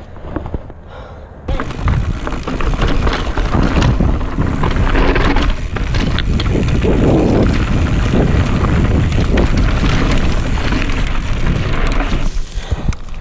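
Mountain bike descending a rocky trail at speed: a loud rumble of wind buffeting the camera microphone, with tyres crunching over loose rock and the bike rattling, starting about a second and a half in.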